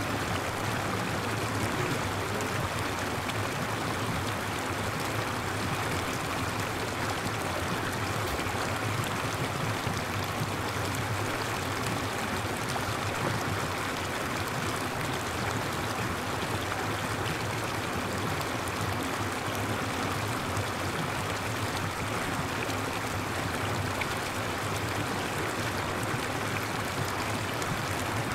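Steady, even rushing noise with no breaks or separate events.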